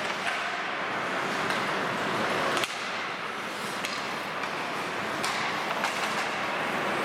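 Ice hockey play heard in a rink: a steady hiss of skates on the ice, broken by a few sharp clacks of sticks and puck, the strongest about two and a half seconds in.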